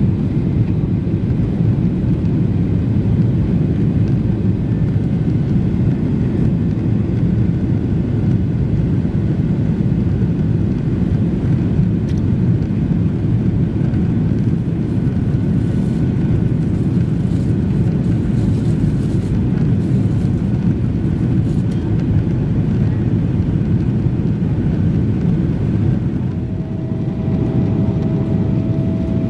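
Cabin noise of a Boeing 777-300ER climbing after takeoff: the steady low rumble of its GE90 engines and the airflow, heard through the cabin from a seat over the wing. A faint steady whine comes in near the end.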